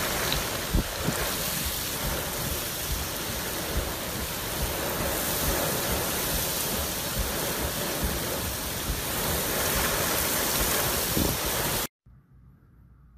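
Category 1 hurricane wind and driving rain, a dense steady hiss with irregular gusts buffeting the microphone. It cuts off abruptly near the end, leaving only a faint hiss.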